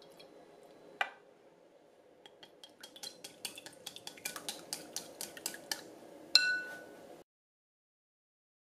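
Raw eggs being beaten in a glass bowl with a wooden utensil, heard as a quick run of clinks against the glass, about four a second and getting louder. Near the end comes one loud ringing tap on the bowl.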